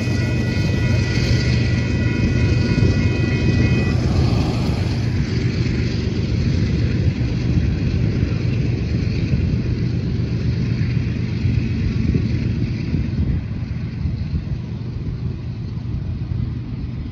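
Railroad crossing warning bell dinging rapidly as the gate arms rise after a train has passed, stopping about four seconds in. Under it, a steady low rumble.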